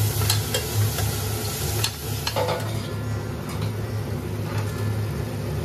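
Sliced mushrooms sizzling in butter in a stainless steel pan while being stirred with a metal spoon, which scrapes and clicks against the pan, over a steady low hum. There is a brighter clatter of metal about halfway through.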